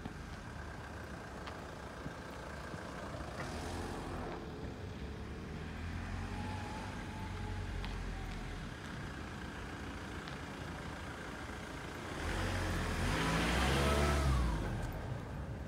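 Steady low engine rumble, with a vehicle driving past about twelve seconds in: its engine note swells, then drops in pitch as it goes by. A fainter, shorter pass comes about three seconds in.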